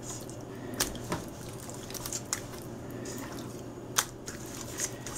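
Raw chicken pieces being pushed and turned by hand in a stainless steel bowl of marinade: faint wet squishing with a few sharp clicks and knocks against the bowl, the loudest about four seconds in. A steady low hum runs underneath.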